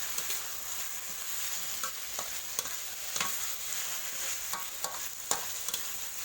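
Frog pieces sizzling in curry paste in a wok while a spatula stirs them, with a steady hiss and sharp clinks and scrapes of the spatula against the pan every half second or so.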